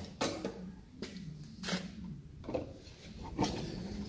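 Steel multipoint lock being handled and slid into its mortice in a timber door edge, giving a few short knocks and scrapes of metal on wood.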